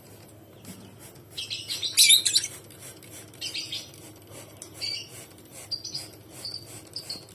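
Lovebirds calling: a loud, harsh burst of squawks about a second and a half in and a few shorter calls, then short high chirps repeating about twice a second.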